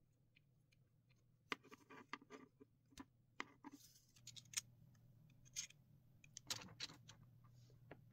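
Irregular clicks and short scrapes of hard 3D-printed PLA plastic parts being handled: twist-locking pins fitted to a hexagonal bracket and the arm's rods moved on their pivots.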